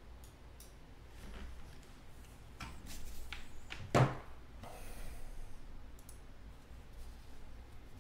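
Scattered small clicks and light handling noises, with one sharper knock about four seconds in.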